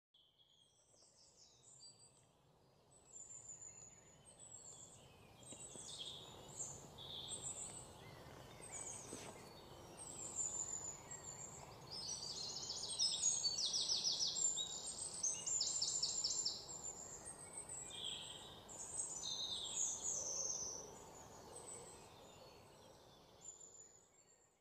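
Several birds chirping and calling, with some fast trills, over a faint steady hiss. The sound fades in at the start and fades out near the end.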